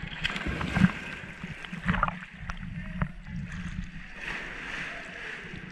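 Water splashing and sloshing right at the surface as scuba divers in gear enter the pool from a dock and swim beside the camera, with several sharp knocks in the first few seconds.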